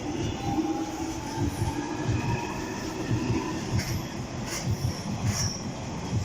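London Underground Jubilee line train pulling away from the platform: a steady low rumble of wheels and motors with a faint whine, and a few sharp clicks in the second half.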